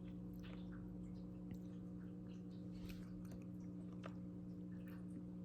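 Faint chewing of a roasted jalapeño: soft, scattered mouth clicks spaced about a second apart, over a steady low hum.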